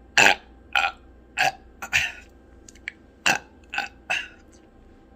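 A person burping from drinking beer: about eight short burps in quick succession, each brief and sharp.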